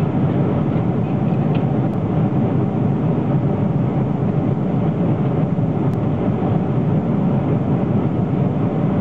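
Steady, even cabin noise of an airliner: engine and airflow noise that holds at one level throughout.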